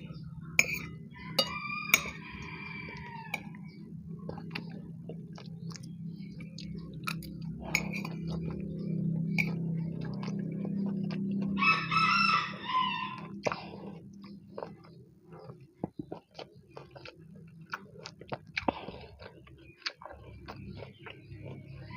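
A rooster crowing twice, once about two seconds in and again around twelve seconds in, over a low steady hum. Scattered sharp clicks of a spoon against a bowl and eating sounds run throughout.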